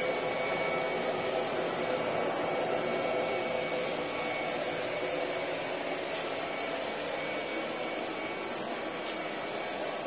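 ILIFE robot vacuum running steadily across a tile floor, sweeping up sand and dirt: an even whir with a faint high whine running through it.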